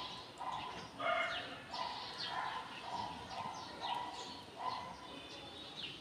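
House crows cawing: a run of short calls repeated about twice a second.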